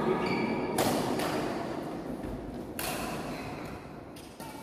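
Badminton rackets striking the shuttlecock during a rally: two sharp smacks about two seconds apart, each echoing briefly in the hall.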